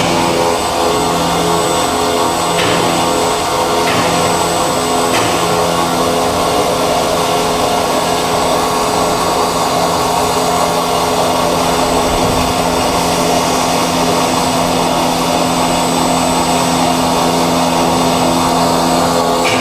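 High-speed carbide circular plate saw running through an automatic cut sequence on a metal block: a loud, steady machine drone with several hum tones and a few faint clicks a few seconds in.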